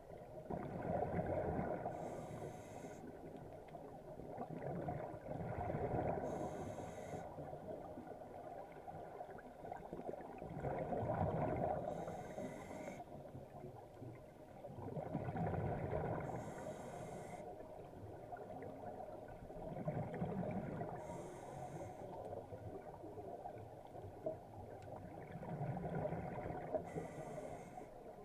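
Scuba breathing through a regulator underwater, in a slow steady rhythm. Each breath is a short hiss of inhaling through the demand valve, then a swell of bubbling as the exhaled air leaves the exhaust valve, repeating about every five seconds.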